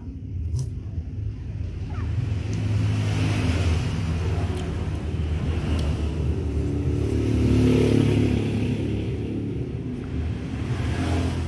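A motor vehicle's engine running close by with a steady low rumble, growing louder through the middle and easing off toward the end.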